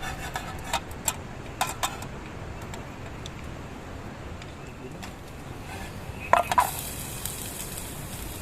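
Scattered clinks of metal cooking utensils against a pan, then a louder pair of clinks about six and a half seconds in, after which a steady frying sizzle starts as food goes into hot oil.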